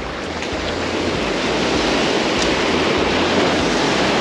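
Small waves breaking and washing in the shallow surf, with wind rumbling on the microphone.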